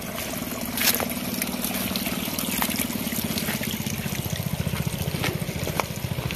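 Irrigation water running and trickling through rice paddies, with a steady low hum underneath and a few light clicks.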